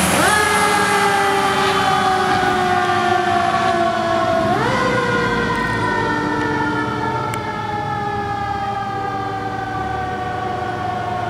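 Fire truck siren winding up quickly and then sliding slowly down in pitch, twice: once at the start and again about four and a half seconds in. It grows gradually fainter as the truck drives away.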